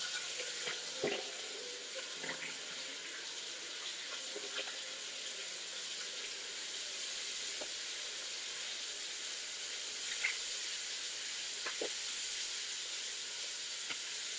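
Flour-dredged chicken frying in hot oil in a pan: a steady sizzling hiss, with a few light knocks scattered through it.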